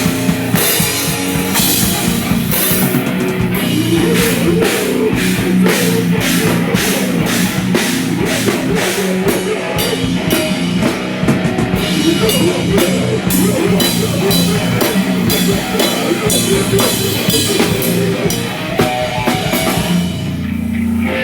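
Live rock band playing loud, with a drum kit hitting fast and electric guitars underneath. Near the end the drums stop and a low chord rings out.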